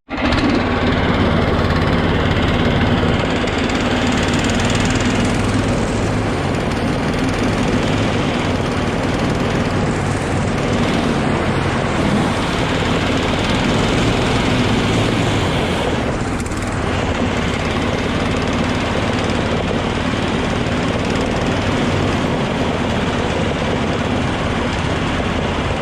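Snowdog motorized track sled engine running steadily at constant speed while riding across the ice.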